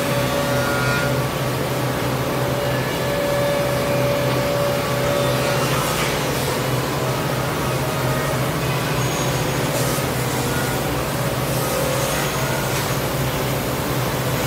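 Woodworking machinery running steadily: a constant motor hum with a higher steady whine over it, and a few short clicks around the middle and later on.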